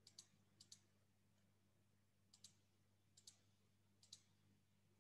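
Faint computer mouse clicks, about five, each heard as a quick pair of clicks, over a faint steady low hum.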